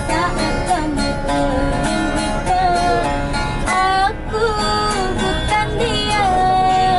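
Acoustic guitar strummed live, with a voice singing over it in long, wavering held notes.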